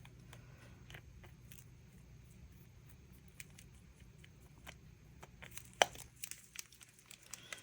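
Faint scattered clicks and scrapes of a stir stick working mica powder into epoxy resin in a ridged disposable plastic cup, with one sharper tick about six seconds in.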